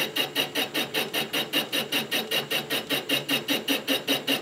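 Knee mill's boring bar taking an interrupted cut in a cement mixer yoke journal: an even, rhythmic pulsing at about eight beats a second, the single-point tool biting on only part of each turn where the bore is out of round.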